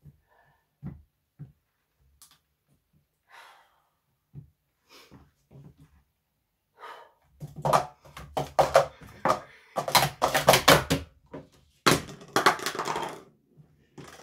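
Plastic sport-stacking cups clattering as they are quickly stacked up and down on a stacking mat: a rapid run of sharp clicks and knocks beginning about seven seconds in, followed by another loud burst of clatter near the end. A few faint taps come before it.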